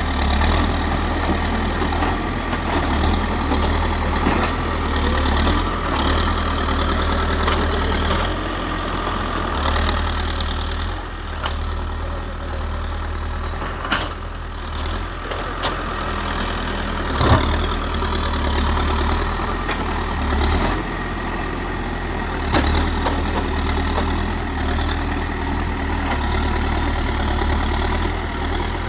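Diesel engine of a Manitou backhoe loader running, its strength rising and falling, with occasional sharp knocks, the loudest about seventeen seconds in.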